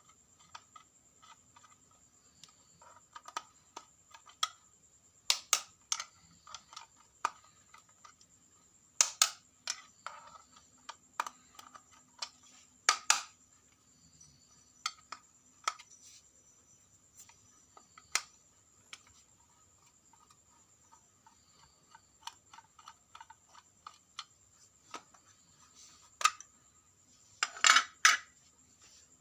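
Irregular light clicks, taps and knocks of small hard objects being handled, loudest in a few sharp knocks spread through and a double knock near the end, over a faint steady high-pitched tone.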